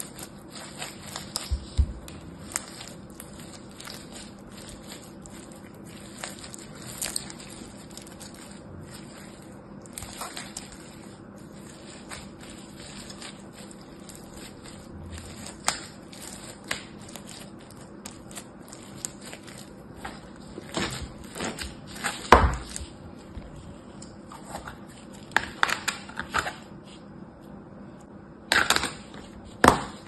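Foam-bead slime squeezed and kneaded by hand, the small polystyrene beads crackling and popping in quick irregular clicks. There are a few louder squishy crackles past the middle and near the end.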